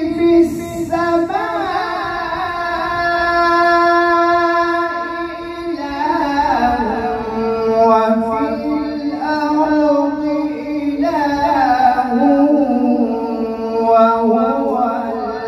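A man reciting the Qur'an in melodic tartil style through a microphone, drawing out long vowels with wavering ornaments. One note is held for about the first six seconds, then the pitch drops and the melody moves in shorter phrases.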